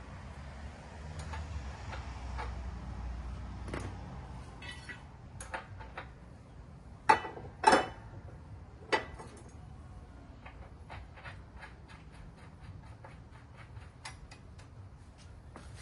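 Metal clanks and clicks of hand tools at work: three sharp clanks in the middle, then a run of light, even clicks about three a second.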